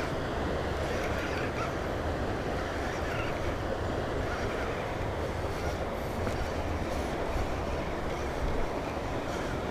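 Steady wind rumble buffeting the microphone, with a few faint handling clicks.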